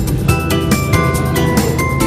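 Background music with a steady beat and melodic notes.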